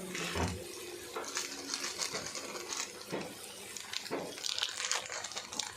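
A cooking utensil stirring food in a pan, with irregular scraping and clinking against the pan.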